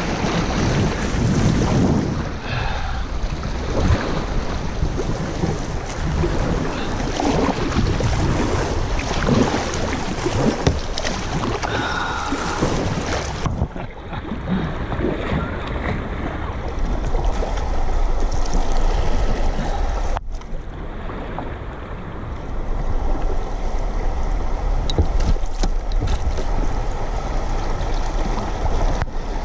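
River water splashing and rushing against a kayak's bow as it runs a riffle of small standing waves. About halfway through, the sound cuts to calmer, quieter flowing water, with a low wind rumble on the microphone.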